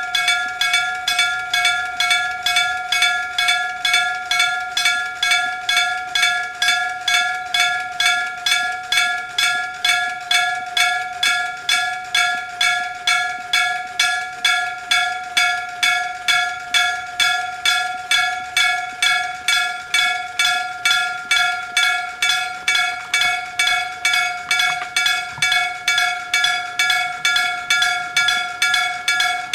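Electric-bell (denshō-type) railway level-crossing warning signal starting up and ringing steadily: a metal bell struck a little over twice a second, each strike ringing with several clear tones. It is warning of an approaching train.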